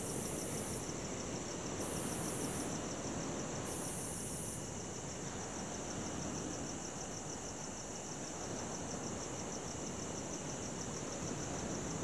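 Night crickets chirping in a steady, rapidly pulsing high trill, with a still higher insect buzz coming in three short bursts in the first few seconds, over a continuous wash of ocean waves.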